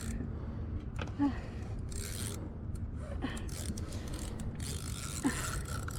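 Faint scraping and rubbing from a fishing reel and rod being worked against a large black drum, over a steady low rumble of wind on the microphone.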